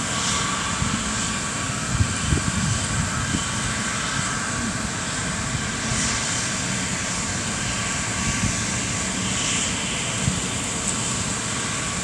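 2013 Chevrolet Silverado service truck driving slowly around a paved lot, heard as a steady rumble with uneven low thumps running through it.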